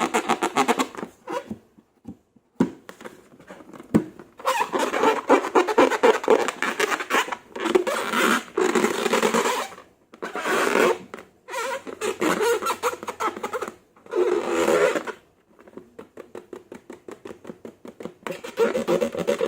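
Slime being squeezed and worked by hand, a wet, squelching crackle that comes in bursts of a second or two with short pauses between.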